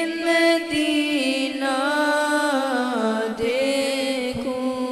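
A boy singing a naat into a microphone, one voice drawing out long, wavering melismatic notes between the sung lines.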